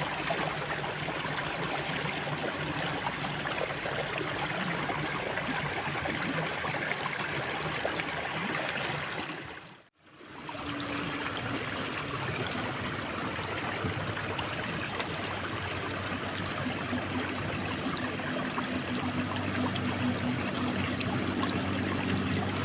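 Water flowing steadily in a drainage ditch. It fades out briefly about ten seconds in and comes back.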